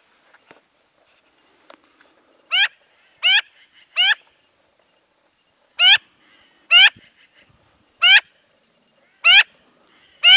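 Black-billed magpie calling close by: eight short calls, each rising in pitch, given as a run of three about a second apart and then, after a short pause, five more. They are the calls of a tame magpie begging for food.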